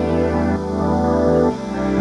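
Background music: slow sustained keyboard chords over a held bass note, the chord changing about a second and a half in.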